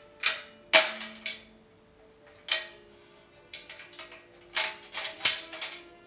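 Silver-plated biscuit warmer's hinged lids clinking and clanking as they are folded open and shut by hand: a series of sharp metal clicks in clusters, the loudest under a second in. Soft string music plays underneath.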